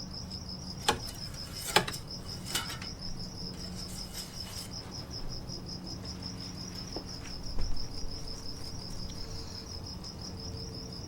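A cricket trilling steadily in rapid, even pulses over a low steady hum. Sharp clicks and knocks come about one, two and two and a half seconds in, with a short clatter near eight seconds, from the engine oil dipstick being pulled out and slid back into its tube.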